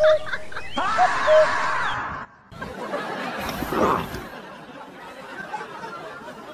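Laughter, broken by a brief dropout about two seconds in.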